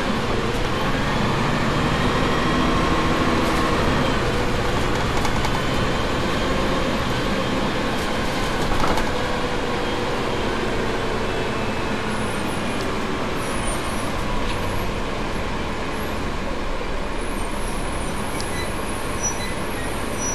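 A KMB double-decker bus's diesel engine and gearbox running while the bus is under way, the engine note rising and falling. A short knock about nine seconds in, and faint high squeals later on.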